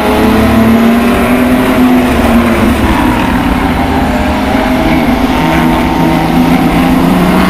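Race car engine running hard at high revs, loud and continuous, its pitch holding nearly steady with small shifts.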